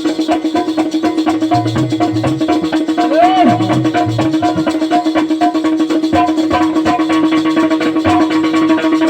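Instrumental break in a Bundeli Rai folk song: a steady held note under fast, even rattling percussion and drum beats, with a short sliding tone about three seconds in.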